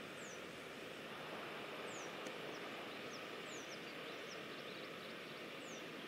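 Steady distant rush of a waterfall, with short, high, downward-sliding bird chirps every second or so over it.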